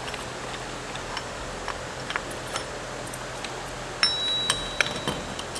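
Metal transmission parts clicking and clinking during disassembly. About four seconds in, a sharper metal strike sets a part ringing with a clear bell-like tone for over a second.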